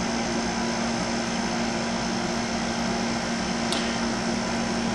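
Steady machine hum with an even hiss, holding constant throughout, with one small tick about three and a half seconds in.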